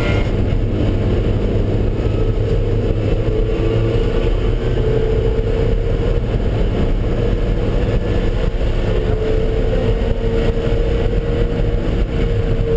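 Car engine running at fairly steady revs under load, with continuous road and wind noise.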